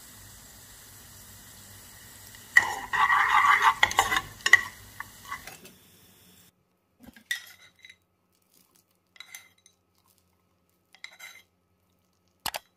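Pine nuts frying in oil in a pan, a steady light sizzle, with a spoon scraping and clinking against the pan for about two seconds a few seconds in. The sizzle stops about halfway through, leaving a few scattered light clinks.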